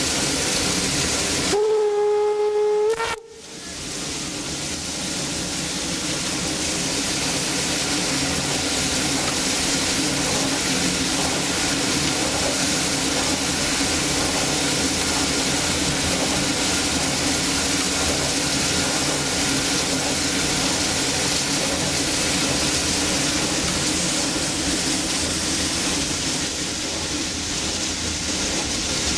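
A steam locomotive whistle sounds one short steady note about two seconds in and cuts off sharply. Then the standing locomotive hisses steadily, steam escaping from around its cylinders.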